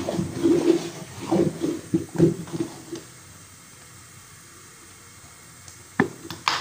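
Thick haleem being stirred with a steel ladle in a steel pot: wet squelching and plopping for about three seconds, then quiet. Near the end, two sharp knocks about half a second apart.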